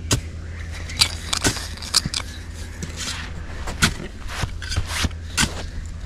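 Irregular sharp clinks, knocks and scrapes of digging through dirt full of old glass, a dozen or so strikes, over a steady low hum.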